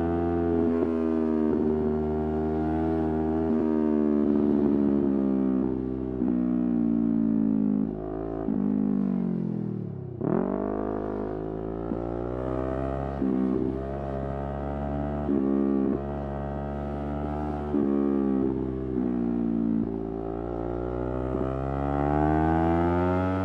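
Yamaha R3 parallel-twin engine under way, its note rising and falling with throttle and gear changes. About ten seconds in, the revs drop sharply to a low point and then climb back up.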